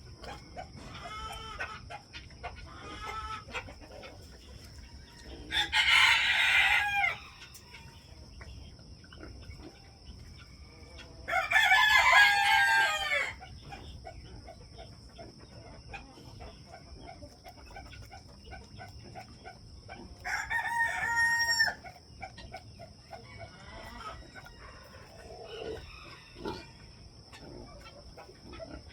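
Roosters crowing: three loud crows, each about one and a half to two seconds long, about six seconds in, about twelve seconds in and near twenty-one seconds, with quieter chicken clucking in between.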